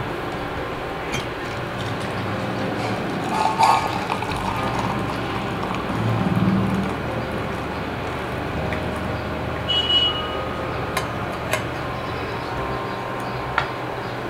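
Herbal decoction being poured through a strainer: a steady trickle and splash of liquid, with a few light clinks of utensils.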